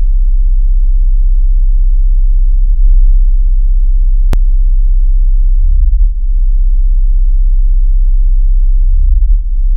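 A loud, steady, deep bass drone, a synthesized sub-bass tone, with one sharp click a little past four seconds in.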